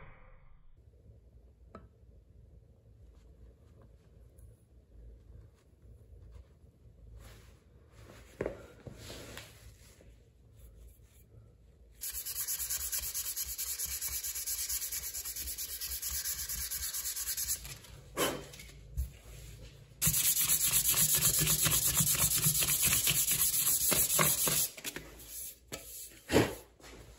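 Brisk back-and-forth hand sanding with blue sandpaper on the new wooden hatchet handle where it meets the head, in two spells of about five seconds each, with a few light knocks between and after them.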